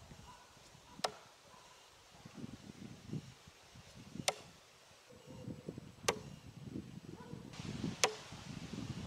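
Hand-forged steel tomahawk thrown into a wooden log target, striking four times, each a sharp thunk with a short ring, one to three seconds apart.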